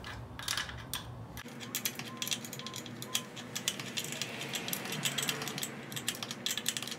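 Ratchet wrench clicking in quick, uneven runs as it turns the nut of a VW engine case-splitting tool, pushing the engine case halves apart.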